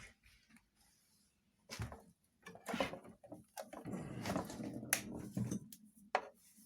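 Irregular clicks, knocks and rustles of equipment being handled, with a faint low hum from about two seconds in.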